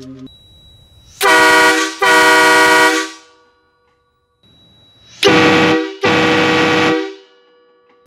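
Train horns on a Peterbilt 379 semi truck sounding a chord of several steady tones in four blasts, two pairs each made of a short blast and a longer one; pretty loud.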